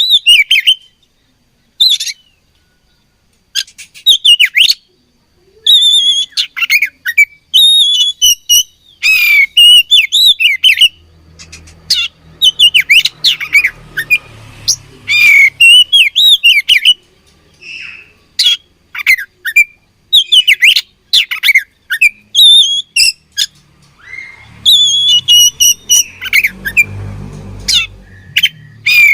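Oriental magpie-robin singing: repeated short bursts of quick whistled and chattering notes that sweep up and down, broken by brief pauses.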